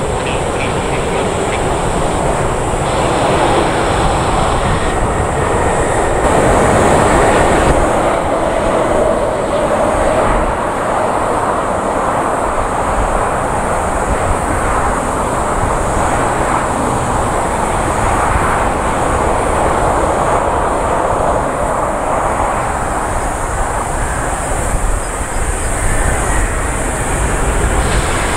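Wide-body jet airliner engines: a steady, loud roar from airliners landing and on final approach, with a change in its character about six seconds in.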